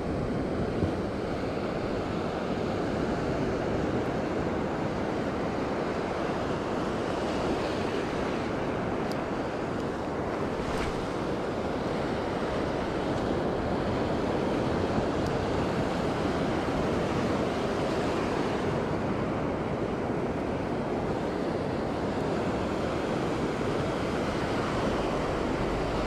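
Surf washing in over the shallows of a sandy beach: a steady rush of breaking waves and foam.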